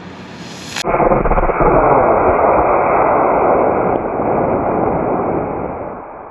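Model rocket motor firing at liftoff: a sudden loud rushing roar about a second in, which holds for several seconds and fades near the end.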